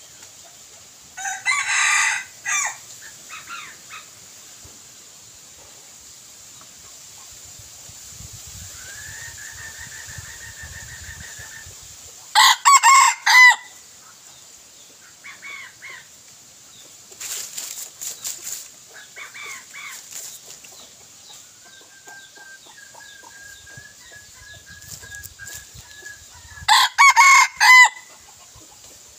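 Red junglefowl roosters crowing three times, short clipped crows about twelve seconds apart, with softer clucks and calls between them.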